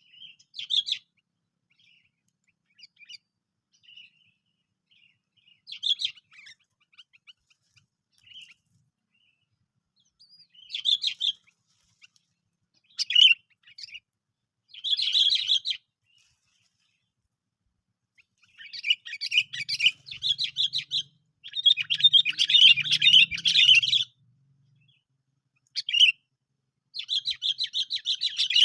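Sooty-headed bulbul calls: scattered short chirps at first, then, in the second half, long runs of rapid chattering notes.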